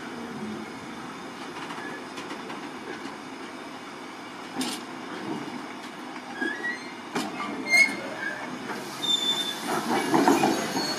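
Empty stanchioned timber wagons of a freight train rolling slowly past, their wheels running over the rails with short squeals and two sharp clanks. The rattling and squealing grow louder over the last few seconds as the train brakes to a stop.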